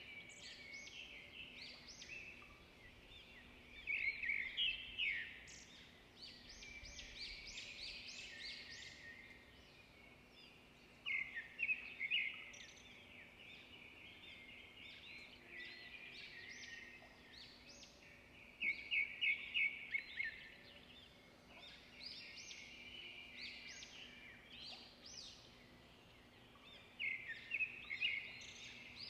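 Birds singing: groups of quick, high chirps about every seven or eight seconds, with softer chirping between them and a faint steady hum underneath.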